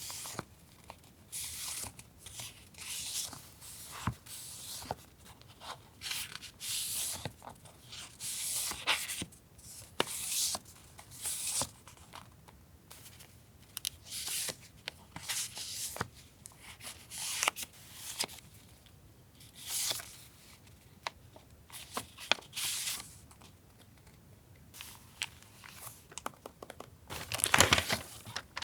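Paper stationery being handled: repeated short paper rustles, some like tearing, with a few light taps, and a louder flurry near the end.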